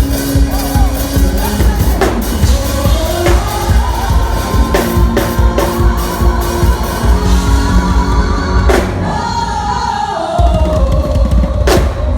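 Live church music: a band with drum kit and bass plays under a singer holding long notes that slide up about three seconds in and slide down near the end.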